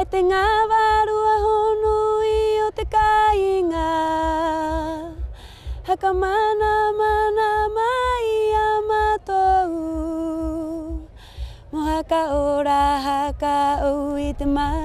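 A woman singing a Rapa Nui ancestral chant solo, unaccompanied, in long held notes that step down in pitch at the end of each phrase, with short breaths between phrases.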